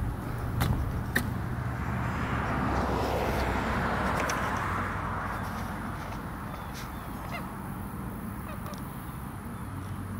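Outdoor ambient noise with a steady low hum and a rushing hiss that swells and fades over a few seconds in the middle. A couple of faint clicks come near the start.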